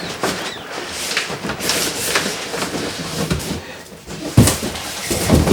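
Cardboard packaging being handled: irregular rustling, scraping and sliding, with two heavier knocks near the end.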